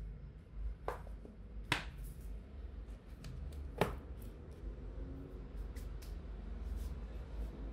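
A few sharp clicks and light knocks as a pinch of coarse sea salt is dropped into a stainless saucepan of chicken bones and vegetables and the small salt cup is set down, then soft rubbing as hands are brushed together over the pot, all over a steady low hum.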